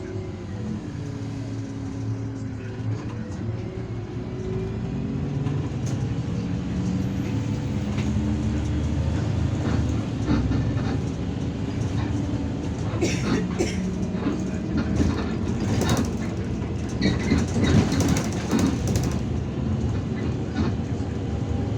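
Irisbus Citelis 12M city bus under way, heard from inside the cabin: the engine and drivetrain drone, their pitch falling and then rising again in the first few seconds. In the second half, sharp rattles and knocks from the body.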